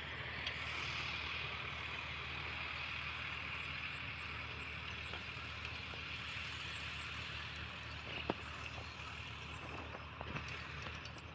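A steady low engine hum under an even hiss, with a single sharp click about eight seconds in.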